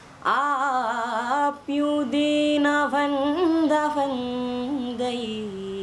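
A teenage boy singing unaccompanied: one long melodic phrase of held, wavering notes with a short break near the start, sinking lower toward the end.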